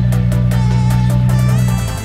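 Background electronic music with a steady beat and a held bass note that drops away near the end.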